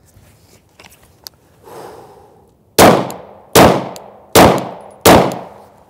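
Four handgun shots about three-quarters of a second apart, the first a little under three seconds in: two aimed shots on one target, then two on the next. Each shot is a sharp crack with a short fading tail.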